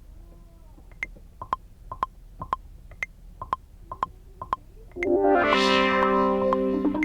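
Electronic beat music from a synthesizer or keyboard: a sparse run of short, high plucked notes, then a sustained synth chord comes in about five seconds in and holds.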